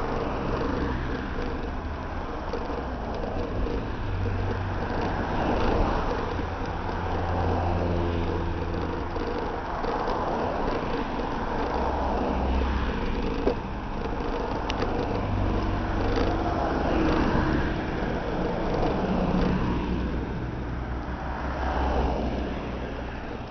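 Cars passing close by on a two-lane road: engine rumble and tyre noise swelling and fading as each one goes by, with a couple of light clicks about halfway through.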